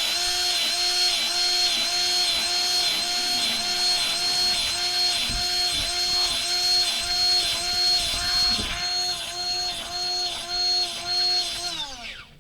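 Powered grease gun running for about twelve seconds, a steady motor whine that pulses evenly with its pump strokes, pumping grease into an air compressor through a grease nipple fitted in place of its oil filler plug. It winds down near the end.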